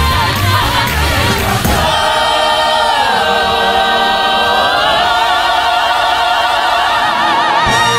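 Show music for a stage dance number. A driving beat gives way about two seconds in to a long held chord with wide vibrato, then a sharp final hit just before the end.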